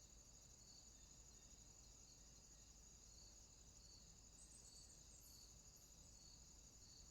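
Faint outdoor insect chorus: a steady high-pitched trill, with a second insect chirping about once a second. A brief higher buzz comes about five seconds in.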